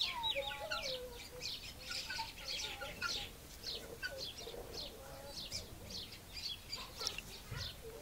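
Many small birds chirping together in a steady chatter of short, high chirps, with a few lower calls mixed in.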